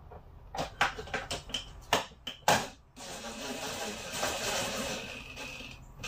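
A few clicks and knocks as the driver and screw are set against the fridge frame, then about three seconds in a cordless driver runs steadily, driving a 2-inch deck screw through a pre-drilled hole into the wood above the fridge.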